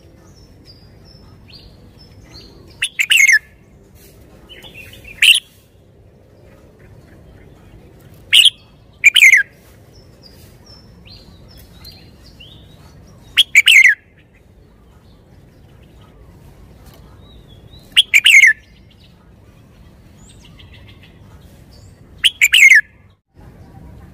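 Red-whiskered bulbul singing: about seven loud, short, clear song phrases a few seconds apart, with fainter high chirps between them.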